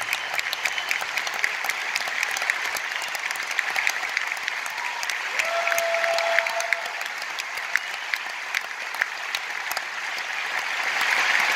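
Audience applauding: dense clapping with many sharp individual claps.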